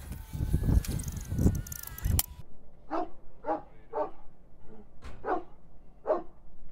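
A dog barking repeatedly, six or so barks spaced about half a second to a second apart, starting a little over two seconds in. Before the barks there is a low rumbling noise that cuts off suddenly.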